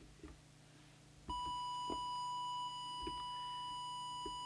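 Audio tone generator switched on about a second in, giving a steady, high-pitched test tone that is fed into the CB transmitter to set its FM deviation. A few faint clicks sound under the tone.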